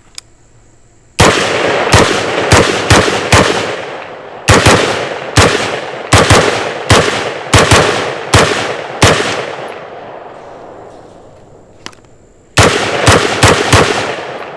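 Short-barrelled AR-15 pistol firing about twenty semi-automatic shots in three quick strings, each shot loud and sharp with an echoing tail; the last string is four rapid shots near the end.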